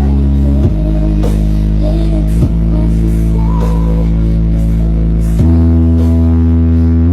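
A huge 'horeg' loudspeaker stack playing music during a sound check, dominated by heavy held bass notes that shift to a new pitch three times, with a fainter melody above.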